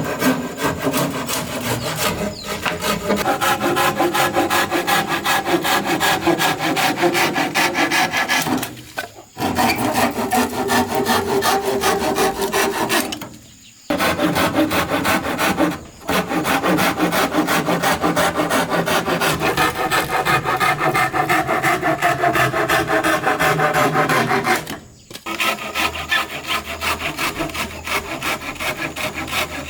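Rapid, steady back-and-forth strokes of a hand tool cutting or shaping wood, with four short breaks between runs of strokes.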